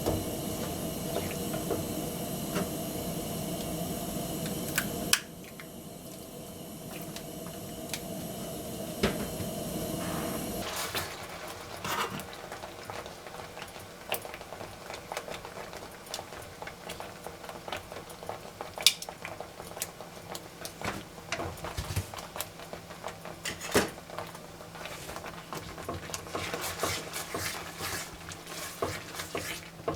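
Kitchen cookware and utensils clinking and knocking against pots and dishes, in scattered sharp clicks. A steady rushing sound cuts off about five seconds in.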